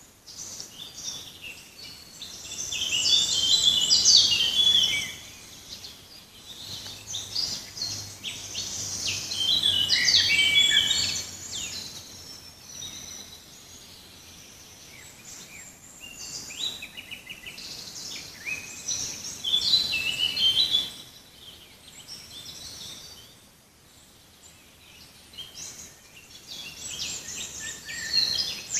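Forest songbirds singing: several phrases of quick, high, tumbling notes a few seconds apart, over a steady background hiss.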